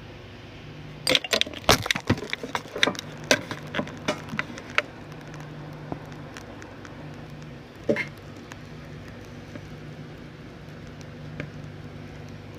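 A quick run of small clicks and taps for about four seconds, then two single taps later on, over a steady low hum: small tools and parts being handled at a soldering bench.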